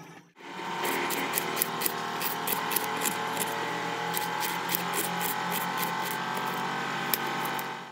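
Serrated kitchen knife slicing through an onion on a granite countertop: short crisp cutting strokes and taps, about three a second, over a steady hum.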